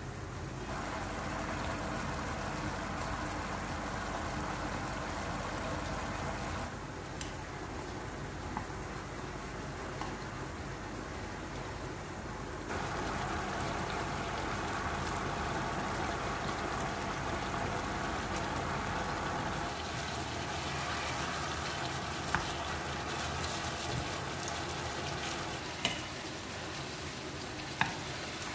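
Pork pieces simmering in thick char siu sauce in a frying pan: a steady bubbling sizzle as the sauce reduces, shifting in level a couple of times. It is joined by a few sharp taps of chopsticks against the pan in the last few seconds.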